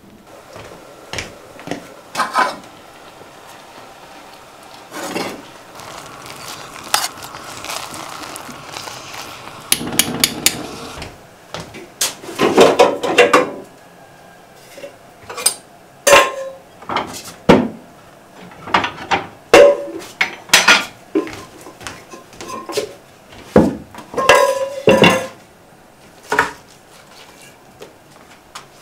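Kitchen utensils and dishware clinking and knocking: a long series of separate metallic clinks, several with a short ring, with a few seconds of steady noise about a third of the way in.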